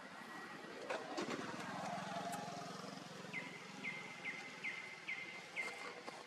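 A bird calling six short chirps in a row, about two a second, each a quick falling note that settles into a brief steady tone. Before the chirps come two sharp clicks and a low motor hum that rises and then fades.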